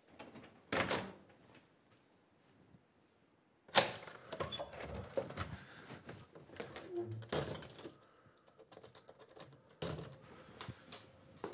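A front door being worked at: a thump about a second in, a sharp knock against the door a few seconds in, then a long run of clicks and rattles from a key and lock, with a few more clicks near the end.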